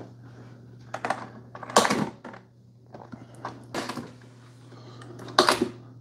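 Lids of Keurig K-Supreme pod coffee brewers pressed shut over K-Cups: three loud plastic clunks about two seconds apart, with lighter clicks between.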